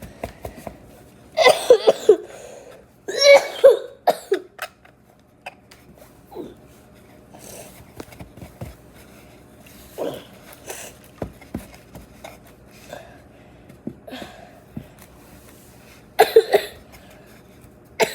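A sick girl coughing hard in three fits: a run of coughs about a second and a half in, another about three seconds in, and a short third one near the end.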